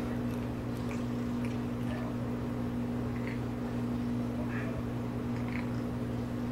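A steady low hum runs throughout, with faint wet little clicks scattered over it, about one a second: a Persian cat licking its lips and fur.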